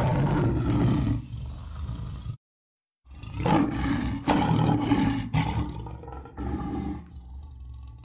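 Big-cat roar sound effects: one roar lasting about two and a half seconds, a short silence, then a longer run of roaring that comes in several surges and dies down near the end.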